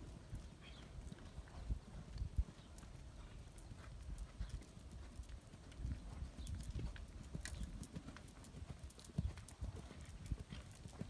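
Hoofbeats of a horse moving around a sand riding arena, an irregular run of low thumps.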